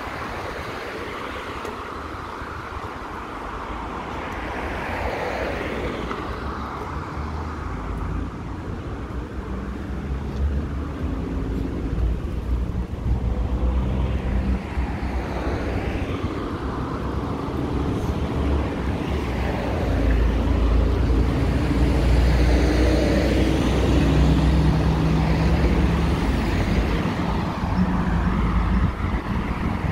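Road traffic: cars passing by with a steady hum and low rumble that swells and fades, getting louder in the second half.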